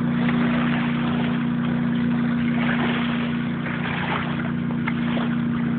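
Motorboat engine running with a steady, unchanging drone.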